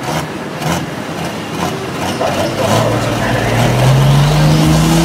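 Diesel engine of a modified pulling tractor, running rough and noisy at first, then revving up with a steadily rising pitch from about two and a half seconds in as it starts to pull the weight-transfer sled.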